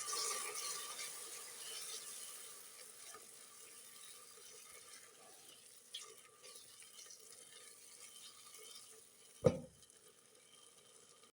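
Food sizzling in a cooking pot, loud at first and then fading to a low hiss. There is a soft clatter of stirring, and one sharp knock about nine and a half seconds in.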